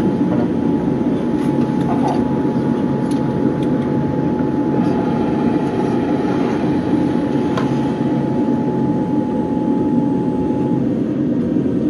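Cabin noise of a Boeing 787-9 taxiing after landing: a steady low rumble of the engines and airflow. A thin steady hum stops near the end, and there are a few faint clicks.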